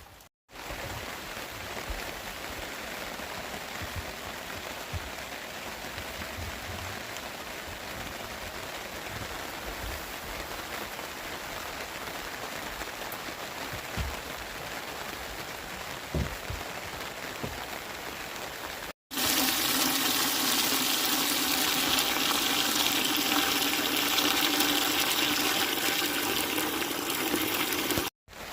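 Steady rain falling. After a cut about two-thirds of the way through, a louder, steady rush of water comes in, with a steady low hum under it.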